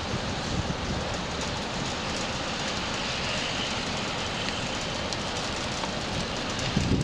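Steady rain falling, heard as a constant, even rushing hiss with a low rumble beneath it.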